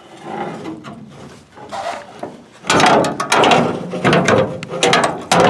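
Loose metal rattling and clanking as the Willys Jeep's hood and its loose hood prop rod are handled. It starts as light rustling and gets much louder, with a dense run of sharp clanks, from about two and a half seconds in.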